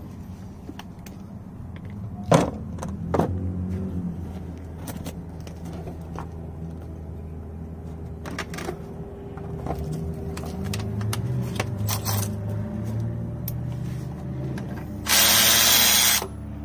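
Steel sockets clinking against each other in a socket tray as one is picked out. Near the end a cordless electric ratchet runs for about a second, spinning out a brake caliper bolt.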